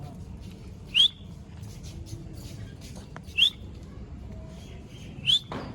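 Green parrot giving three short, sharp whistled calls about two seconds apart, each sweeping quickly up in pitch. There is a brief knock just after the last call, over a steady low hum.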